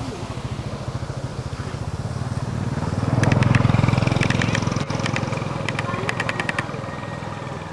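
A small engine running with a rapid low pulse, growing louder to a peak about three and a half seconds in and then fading, as a passing engine does. Short runs of quick clicks sound over the loudest part.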